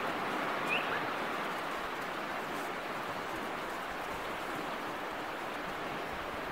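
Steady beach ambience: an even wash of noise, with one short high chirp a little under a second in.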